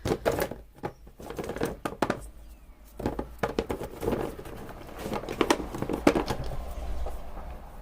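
Paper rustling and crinkling as printed paper scraps are sorted by hand, with many small irregular taps and clicks.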